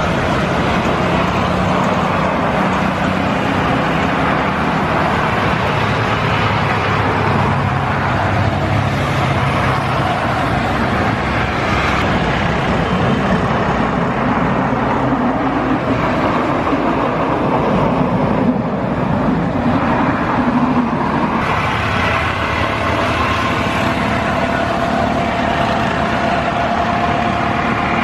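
Steady loud engine noise with a rushing hiss, low hum tones shifting in the first half; over the last several seconds a thin high whine comes in and rises slightly.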